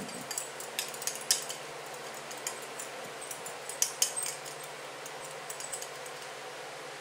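A metal utensil scraping and clinking against a ceramic bowl in irregular light taps as the last of a stir-fry sauce is scraped out, over a steady low hum.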